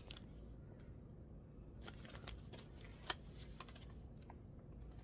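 Faint, scattered clicks and soft rustling from a glossy paper magazine being handled, with one sharper click about three seconds in.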